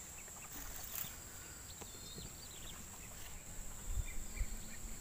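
Quiet outdoor ambience: a steady high insect drone with a few faint short bird chirps, and some low bumps of wind or handling on the microphone about four seconds in.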